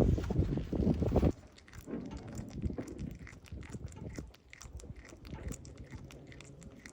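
Cat chewing and crunching food: a quick, uneven run of small crunches. A loud low rumble fills the first second or so.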